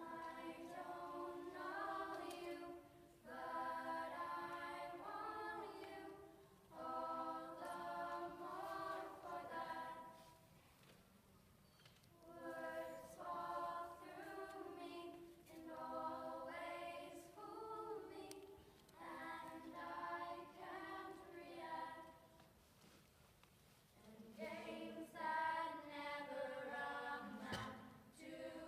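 Middle-school choir singing a slow song in long phrases, with short lulls between phrases.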